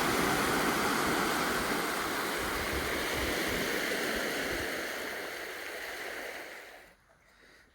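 River water rushing steadily, then fading away near the end.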